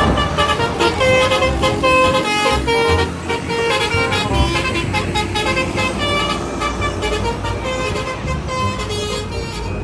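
Telolet bus horn, a multi-tone musical horn, playing a quick tune of short notes that change pitch.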